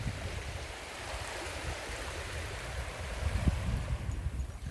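Small sea waves lapping and washing onto a sandy beach, a steady wash that eases off near the end, with a low rumble underneath.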